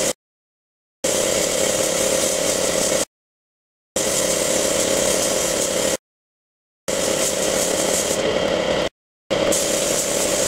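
Compressed-air paint spray gun hissing in passes of about two seconds, with a steady hum under the hiss. Each pass starts and cuts off abruptly, with full silence in between, four times.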